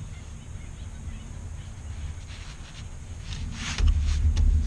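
Sinew lashing being pulled and worked by hand around a wooden kayak-frame joint: little more than a low rumble at first, then a run of short scratchy rustles from about three seconds in.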